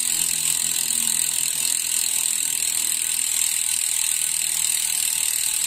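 Rear freehub of a Pacific Primum 7.0's carbon wheelset clicking in a fast, continuous, high-pitched ratchet buzz as the wheel coasts freely: the pawls' 'cricket' sound, very loud.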